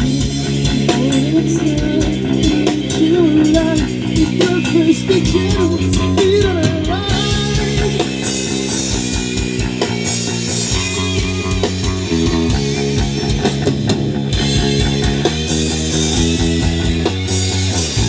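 Rock band playing live through a PA during a soundcheck: electric guitars and bass holding chords over a drum kit, with a wavering melody line in the first few seconds and cymbals washing in twice later on.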